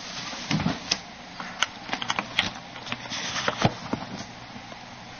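Handling noise on a camcorder as it is moved and set in place: a run of irregular clicks, knocks and rustles, busiest in the middle.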